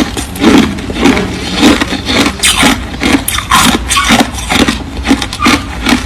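Crushed clear and white ice being chewed close to the microphone: loud, repeated crunches, about two a second.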